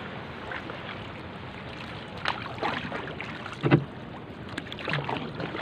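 A single wooden paddle stroking through the water beside a small canoe, each stroke a short splash and swirl. There are about four strokes from two seconds in, and one near the middle is loudest, with a dull thud. Under the strokes is a steady hiss of water and wind.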